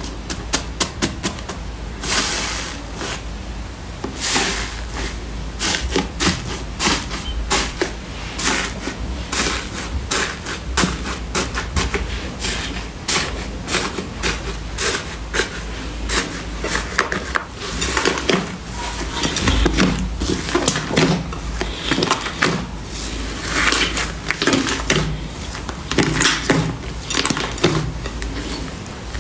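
Clear slime being squeezed and poked by hand, giving a dense, irregular run of sharp clicks and pops.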